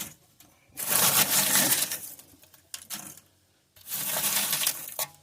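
Pieces of used wood charcoal being scooped out of a kamado-style grill and knocking together, in two scoops: one about a second in and another about four seconds in.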